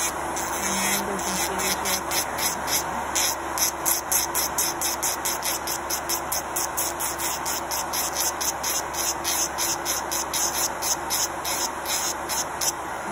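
Electric nail file (e-file) with a sanding band running at about half speed, grinding an acrylic nail in rhythmic strokes about three times a second. Under it a nail dust collector fan runs steadily. The e-file carries a buzz that its owner treats as a fault needing a replacement drill.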